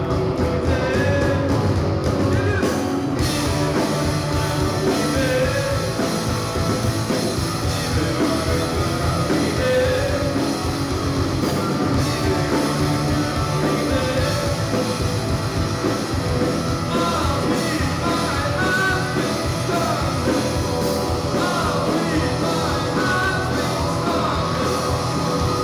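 A live rock band playing loudly, with a singer over amplified guitars, bass and drums; recorded in a large hall.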